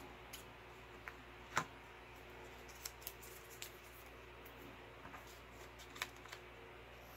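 Scissors snipping through thin card paper: a scattering of short, sharp snips and clicks, the loudest about one and a half seconds in. A steady low air-conditioner hum runs underneath.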